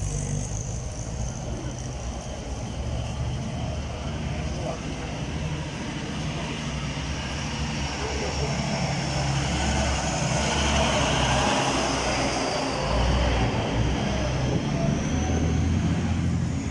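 Motor vehicle engine noise: a steady low rumble with road or traffic noise, louder in the second half.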